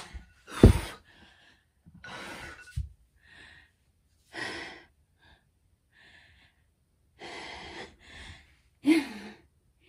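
A woman breathing hard and gasping, heavy breaths every second or two, out of breath from a just-finished 20-minute workout. The loudest gasp comes about a second in; near the end a breath carries a little voice.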